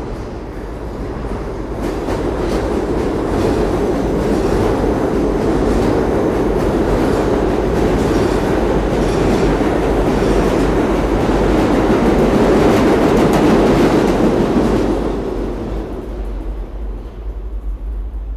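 New York City subway train passing through the station, its wheels rumbling and clattering over the rail joints. The noise builds over the first few seconds, is loudest for most of the middle and dies away in the last few seconds as the train clears the platform.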